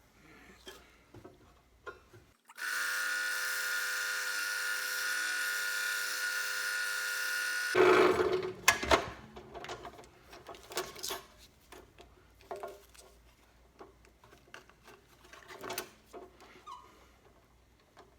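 Electric drill running steadily for about five seconds, boring the small eye hole through thin birch plywood, then stopping abruptly. Light clicks and knocks of the workpiece being handled come before and after it.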